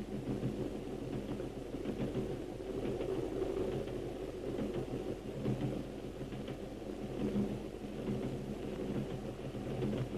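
Steady low rumble of a train running, heard from inside its van.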